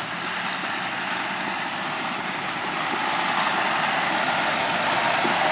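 Maize harvesting machinery, forage harvester and tractors, running steadily, growing louder about halfway through, with a whine coming in near the end.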